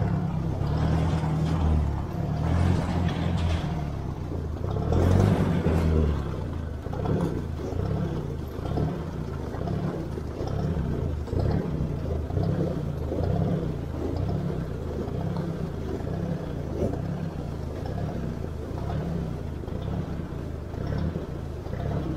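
Ford 600 tractor's four-cylinder gas engine running under way, louder with a couple of surges in the first six seconds, then settling into an uneven, rhythmic lope of about one and a half pulses a second. It is running rough on a newly fitted aftermarket carburetor, which the owner describes as choking.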